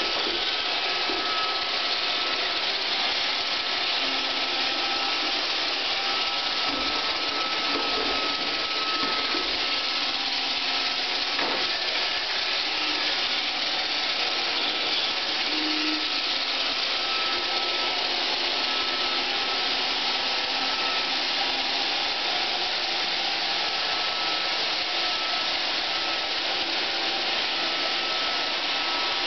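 iRobot Roomba 520 robot vacuum running: the steady whirr of its vacuum motor and brushes with a thin high whine over it, and a single knock about halfway through.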